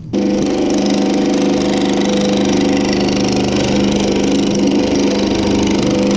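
Power hammer running and shaping a sheet-metal panel with very rapid, even blows over a steady motor hum. It starts abruptly.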